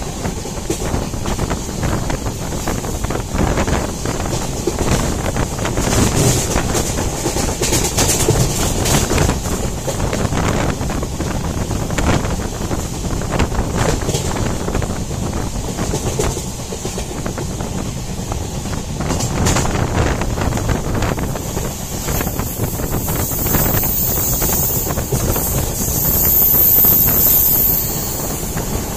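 Passenger train running, heard from inside a moving coach: a steady rumble with irregular clatter of the wheels over the rails, and wind buffeting the microphone. A faint high-pitched squeal comes in twice near the end.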